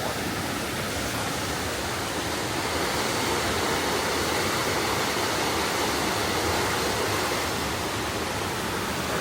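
Steady rush of a mountain stream's fast water pouring over a cascade, swelling slightly in the middle.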